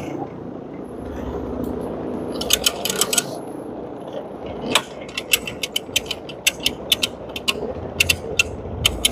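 Carpet-cleaning equipment running with a steady noise, overlaid by sharp mechanical clicks and ticks: a quick cluster a little over two seconds in, then an irregular run of two or three a second through the second half.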